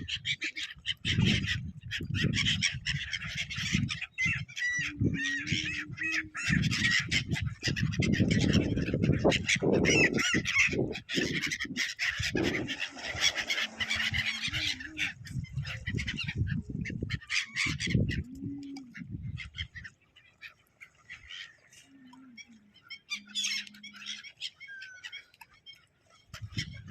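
Many birds calling and chattering together, dense for the first half and then thinning out to scattered calls.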